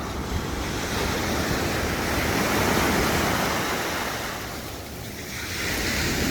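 Pacific Ocean surf washing in at the shoreline: a wave swells to its loudest about halfway through, eases off, then the next one builds near the end.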